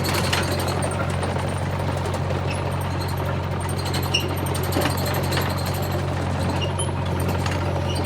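Excavator engine running steadily with a constant low drone, overlaid with scattered metallic rattles and clicks.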